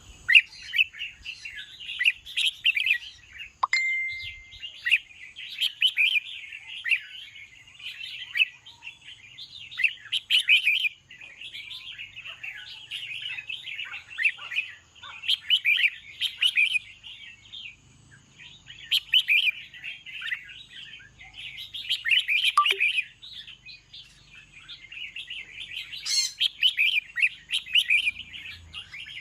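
Red-whiskered bulbul singing short, bubbly warbled phrases, repeated every second or two with brief gaps between them.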